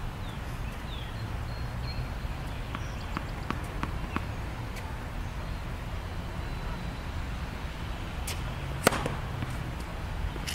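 Steady outdoor background noise with a few light taps, then one sharp tap about nine seconds in, from a tennis player handling ball and racket while readying a serve.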